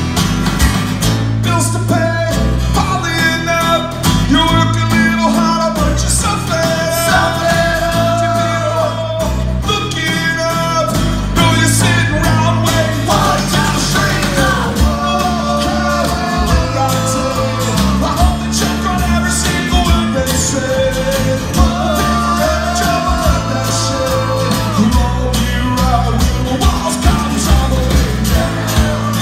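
Live band playing a song in an acoustic arrangement: strummed acoustic guitars and electric bass, with a man singing lead.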